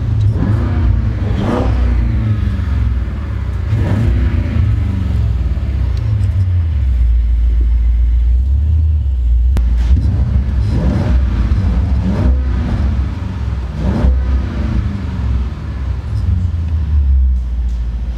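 2020 Audi S8's twin-turbo V8 running through a full titanium aftermarket exhaust under acceleration, a deep steady rumble whose pitch climbs and drops several times as the car pulls and shifts. The exhaust note stays fairly subdued.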